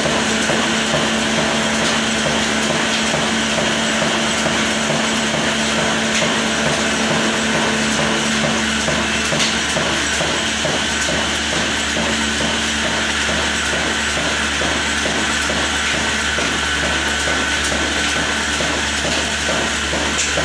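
Old stationary diesel engine running steadily at a constant speed, a loud, even mechanical rhythm.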